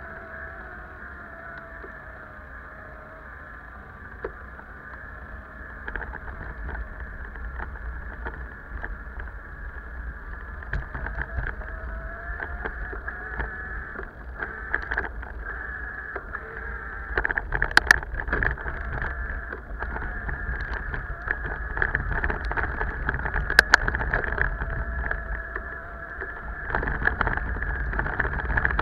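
Wind rushing over the camera's microphone and tyre and road noise from a bicycle ride on asphalt, growing louder as the ride goes on, with two sharp knocks in the second half.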